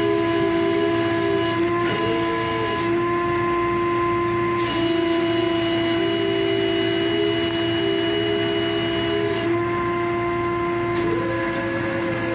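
Machinery running with a steady whining drone, joined several times by a second, slightly higher tone that comes on, wavers a little in pitch, and drops away again.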